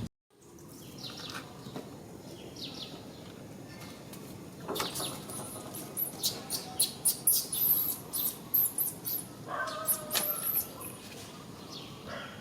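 A quick run of very high-pitched animal squeaks and chirps from about five seconds in until about eleven, over faint outdoor background.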